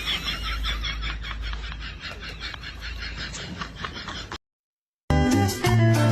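A quick run of short sounds, about five a second, fading away, then a moment of dead silence before guitar music starts about five seconds in.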